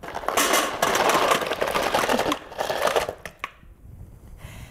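Ice cubes poured into a metal pie pan, clattering as a dense rattle of many small knocks for about three seconds, then dying away to a few scattered clinks.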